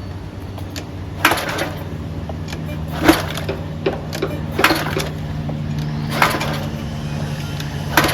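Small gas engine on a pressure washer cranked by its recoil pull-starter about five times, roughly every second and a half, without catching, over a steady low hum. The engine won't start: it has spark and fuel, and the fault lies in a gummed-up carburetor.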